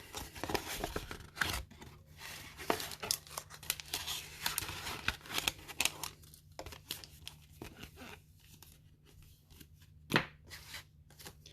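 Sealed booster pack wrappers and paper envelopes being handled: irregular rustling and crinkling with many sharp clicks and taps, busiest in the first half and sparser later, with one louder tap near the end.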